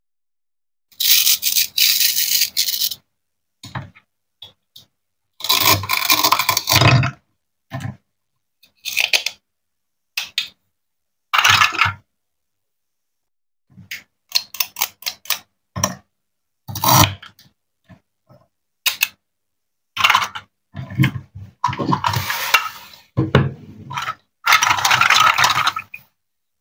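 Plastic toy vegetables being cut apart with a plastic toy knife on a wooden cutting board: a dozen or more rasping tears as the velcro-joined halves separate, some up to two seconds long, with short sharp knocks of plastic on wood between them.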